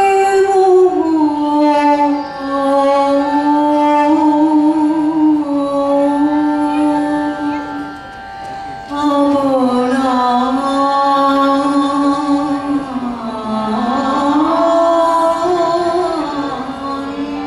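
A woman singing solo into a microphone, a slow melody of long held notes with gliding ornaments, with a short break for breath about eight seconds in.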